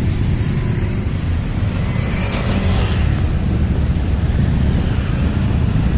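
Heavy diesel dump truck engine running with a steady low rumble, with a short hiss a little over two seconds in.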